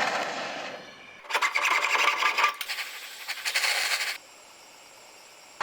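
Rasping, scraping strokes of metal being worked by hand, in two loud spells that stop about four seconds in.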